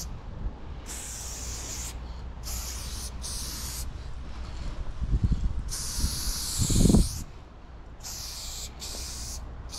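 Aerosol spray paint can spraying in a run of short hissing bursts with brief pauses, laying down black outline lines. A low rumble swells twice underneath, about five seconds in and more loudly just before seven seconds.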